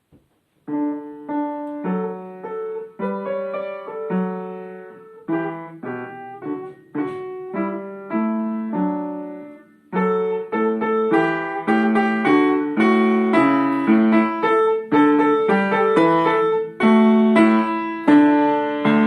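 A piano piece played in two phrases. The first is soft (piano). The second begins loud about ten seconds in and grows louder in a crescendo, finishing on a strong forte.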